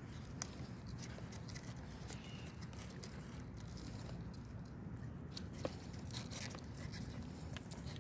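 Scattered light crackles and rustles over a steady low rumble of wind on the microphone.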